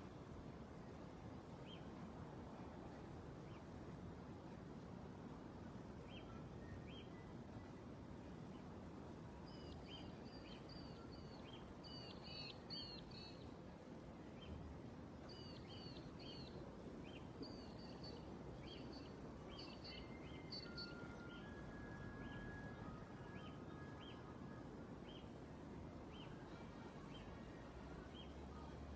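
Birds chirping: short, high, downward-sliding calls, some in quick runs, over a steady faint background hiss, with a regular high-pitched pulsing running throughout.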